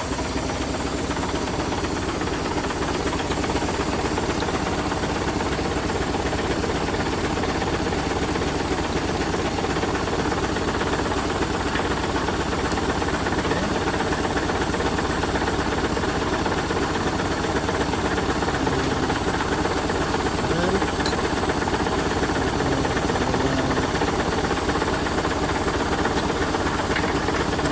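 Diesel engine of a truck tractor unit idling steadily.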